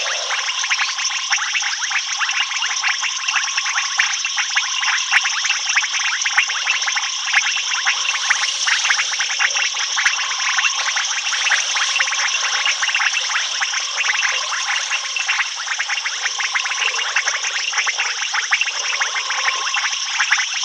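Dense night chorus of calling insects and frogs: a steady, high wall of rapid clicking and trilling pulses with several steady tones running through it.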